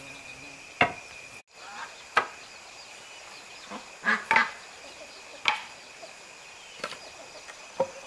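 Sharp wooden knocks: a board set down on a stack, then a piece of wood chopped on a stump, about six strikes at uneven intervals with a close double strike near the middle. A steady high insect drone runs underneath.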